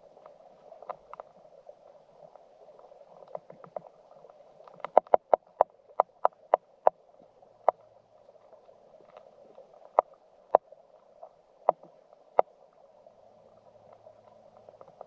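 Stream water heard underwater through a submerged camera: a steady muffled rushing hiss. About five seconds in comes a quick run of sharp clicks, then single clicks every second or two.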